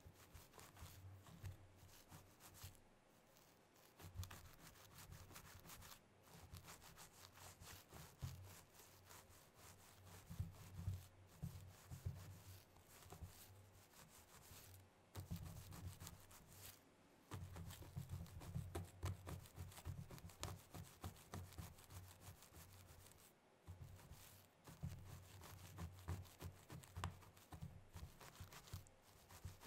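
Very long stiletto nails scratching and raking through hair: a quiet, crackly rustle of many small scratches, coming in runs with brief pauses.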